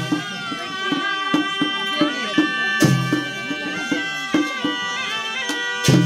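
Traditional folk music: a sustained reedy wind melody over a steady drumbeat. A loud crash with a deep boom comes about three seconds in and again near the end.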